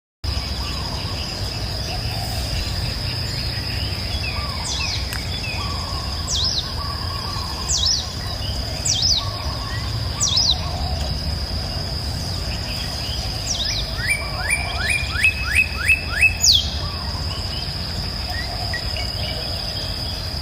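Wild birds calling: repeated short chirps that sweep downward, then a quick run of about eight falling notes a little past the middle. Underneath are a steady high-pitched drone and a low rumble.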